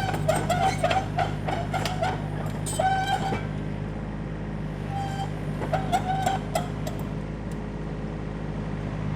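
John Deere 35D compact excavator's diesel engine running steadily while the machine travels. Two clusters of short, high chirping notes sound over it, one in the first three seconds and one again around five to seven seconds in.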